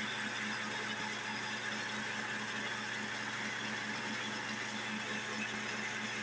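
Grass-chopper machine running steadily during a test run: an even hum with a faint regular pulse under a steady whirring hiss.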